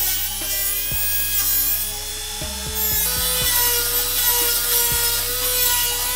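Dremel rotary tool with a cut-off wheel running and grinding against a rusted-on exhaust bolt: a steady high whine over a rasping grind. The whine steps up a little in pitch about three seconds in.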